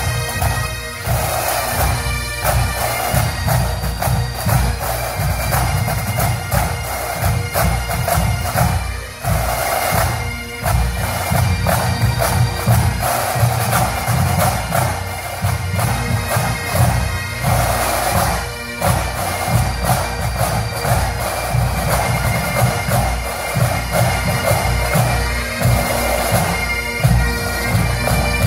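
Massed Highland pipe bands playing: many bagpipes sounding together over their steady drones, with drums beating time as the bands march.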